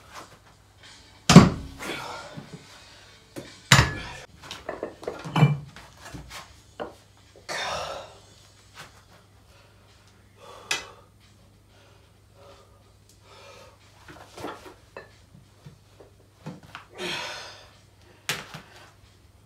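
Plate-loaded dumbbells being handled on a weight bench: several heavy knocks and clanks of the plates, the loudest about a second in and another near the end, with hard exhaled breaths from the lifter in between.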